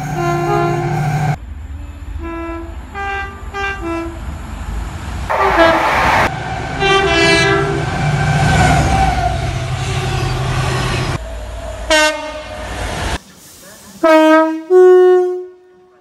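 A series of two-tone train horn soundings from British trains: short toots and longer blasts from freight diesel locomotives over the rumble of the passing train, then two loud blasts near the end after a cut.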